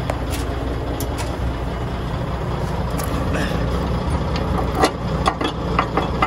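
Diesel truck engine idling steadily, with a few scattered clicks and knocks, most of them in the second half.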